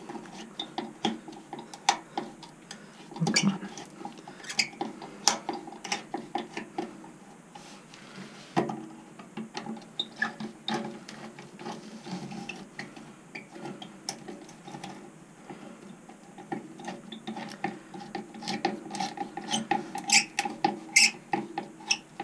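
Screwdriver turning the screws of worm-drive hose clamps on a plastic water line over a barb fitting: a run of small irregular clicks and ticks as the clamps are tightened by hand, sharper near the end.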